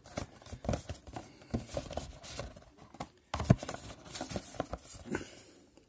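Cardboard card box handled by hand: irregular taps, knocks and scrapes of cardboard, with a sharper knock about three and a half seconds in.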